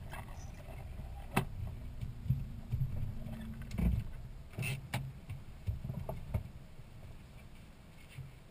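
Low vehicle rumble with a few scattered sharp knocks and rattles, dying away over the last couple of seconds.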